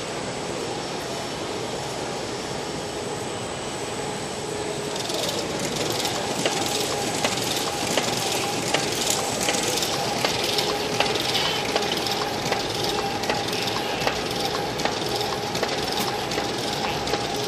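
Petratto Mini Metro folder-gluer running as it folds and glues cartons: a steady machine hum with a few faint steady tones. About five seconds in it grows a little louder, and a fast, irregular clicking of cartons and moving parts sets in.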